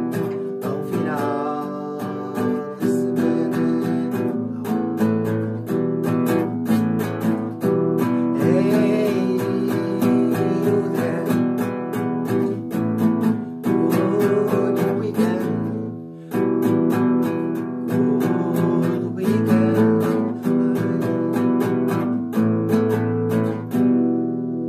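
Nylon-string classical guitar strummed in steady rhythmic chords, struck with a coin used as a plectrum. The strumming breaks off briefly about two-thirds of the way through, then carries on.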